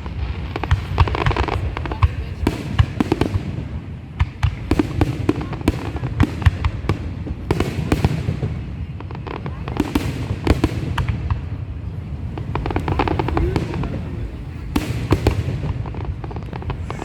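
Fireworks going off without a break: rapid crackling and popping with sharper bangs in clusters, over a steady low rumble.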